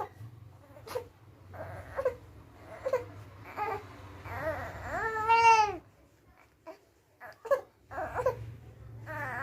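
Two-month-old baby boy cooing and gurgling in a string of short vocal sounds, with one longer, louder call that rises and falls about five seconds in.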